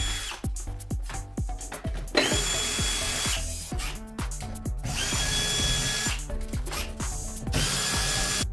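Power drill run in three bursts of about a second each, each spinning up to a steady high whine, over background music with a steady beat.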